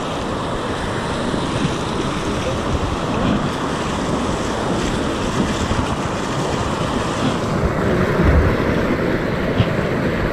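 River rapid: whitewater rushing steadily, heard close up from a kayak running through it, with a low thump about eight seconds in.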